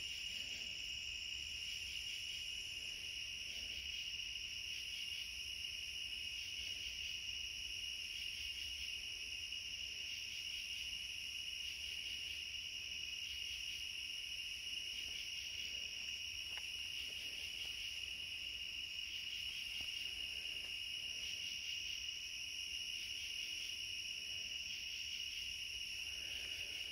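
Night insects such as crickets trilling in a continuous chorus, a high steady whine at one pitch that never breaks.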